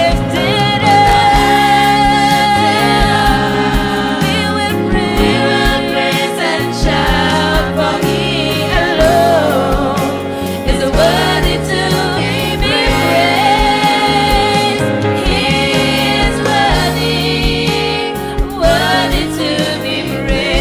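Youth choir singing a gospel song over band accompaniment with a steady beat.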